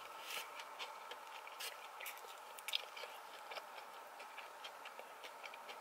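Faint chewing of a mouthful of sushi: soft, irregular little mouth clicks and smacks close to the microphone over quiet car-cabin background.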